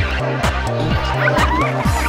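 Background dance music with a steady, fast beat: repeated kick drum and a pulsing bass line.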